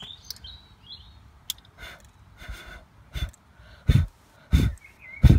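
A person blowing short puffs of breath, about six of them, spaced well under a second apart and getting louder. The last three hit the microphone with a heavy rumble. Birds chirp briefly in the first second.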